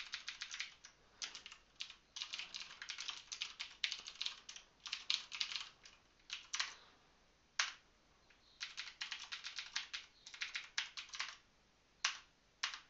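Computer keyboard typing in quick runs of keystrokes broken by short pauses, with a few single, sharper key strikes in the second half.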